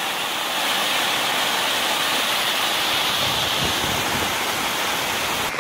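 Heavy rain falling and muddy storm runoff rushing down a slope and pouring over a stepped wall: a steady rushing noise.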